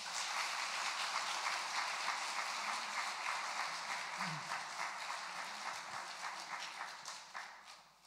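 Congregation applauding: a dense patter of many hands clapping that dies away near the end.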